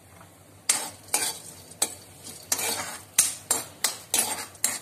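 Metal ladle scraping and stirring chopped almonds around a metal wok as they roast in a little oil. About ten scraping strokes, some short and some drawn out, start under a second in, at roughly two a second.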